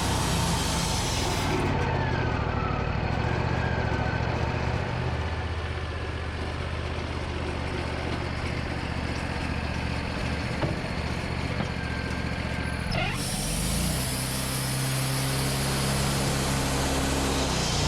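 Engine running steadily, its pitch dropping a couple of seconds in and rising again about fourteen seconds in.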